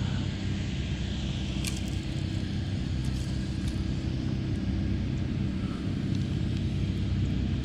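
A steady low rumble, with a brief click about two seconds in.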